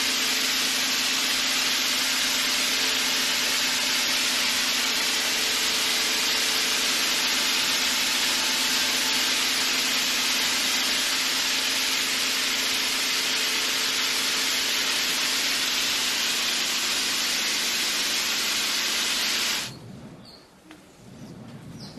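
Greenhouse spraying rig misting the rows of pepper plants: a loud, steady hiss of spray with a low hum under it. It cuts off sharply near the end, giving way to a much quieter scene with a few faint high chirps.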